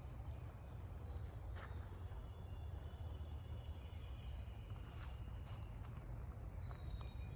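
Quiet forest ambience: faint, scattered bird chirps over a steady low rumble, with a couple of soft clicks.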